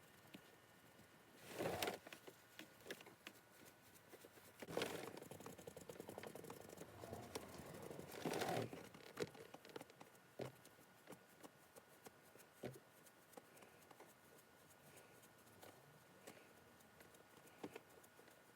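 Faint, irregular dabbing and light taps of a sponge working leather colourant into car-seat leather, with louder rustling handling noises about 2, 5 and 8 seconds in.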